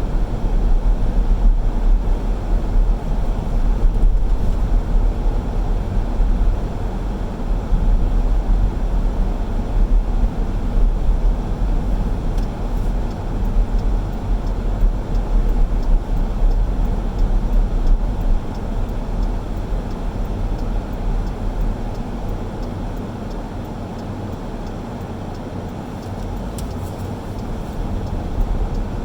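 Car driving through town: a steady low rumble of engine and road noise that eases a little about three-quarters of the way through.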